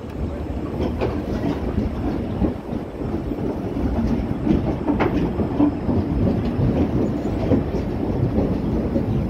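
Passenger coaches of an Indian Railways express train rolling past while pulling into a station: a steady rumble of steel wheels on the rails with scattered clicks and knocks as the wheels cross rail joints.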